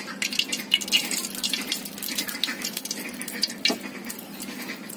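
Oil heating in an aluminium karahi, crackling and spitting in a dense spatter of small pops. One stronger knock comes near the end.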